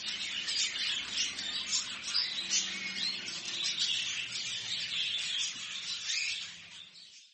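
Many small cage birds in a bird shop chirping at once in a dense, overlapping chorus of high tweets, fading out near the end.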